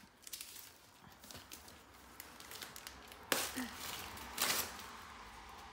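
Wrapping paper rustling and crinkling as a gift is unwrapped, with a sharp tearing rip about three seconds in and another about a second later.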